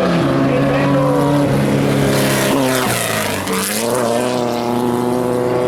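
Off-road race vehicle engines running. One engine's pitch drops to a low point about halfway through, then climbs again as it revs back up.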